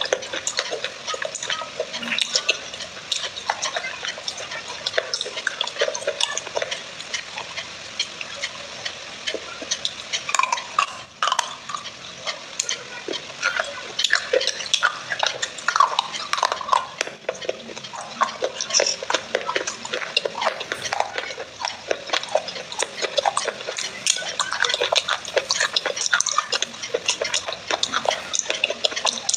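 Wet clay paste, made from soaked crushed clay pots, being stirred and squished by hand in a glass bowl close to the microphone: a continuous, irregular run of wet squelches and small clicks.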